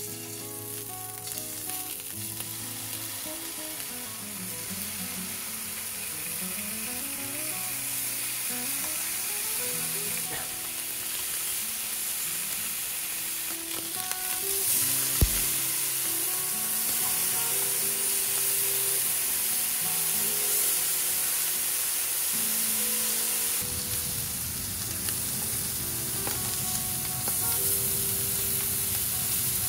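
Thin slices of beef tongue sizzling in oil in a nonstick frying pan as they are laid in and turned with chopsticks, the sizzle growing louder over the first ten seconds or so. A single sharp tap about fifteen seconds in. Soft background music underneath.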